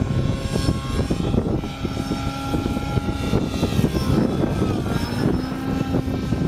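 Nitro glow engine and rotors of a Thunder Tiger Raptor 90 G4 RC helicopter running in flight, its whine shifting in pitch a couple of times as it manoeuvres.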